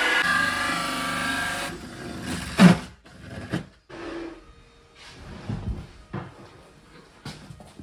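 Makita 18V cordless drill running a hole saw through the side panel of a kitchen base unit, its steady motor whine stopping a little under two seconds in. A loud knock follows, then a few lighter knocks and rubbing sounds.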